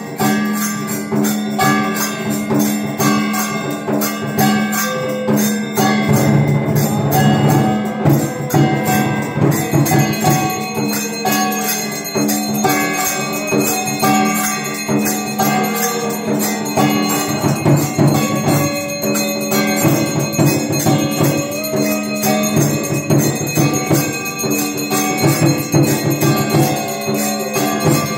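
Live temple arti music: bells, cymbals and percussion beating in a steady rhythm over sustained tones.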